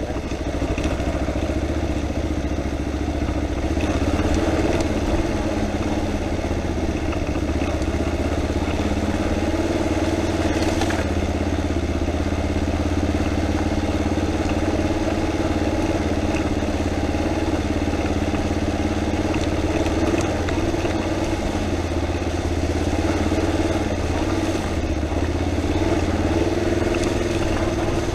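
Motorcycle engine running steadily, without revving, throughout.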